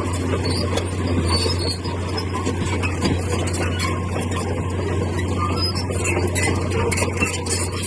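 Heavy construction machine's engine running steadily under a constant low hum, with rapid light clicking and rattling over it.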